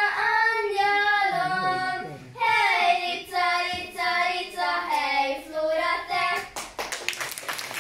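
Children singing a song together; the song ends about two-thirds of the way through and the audience breaks into applause.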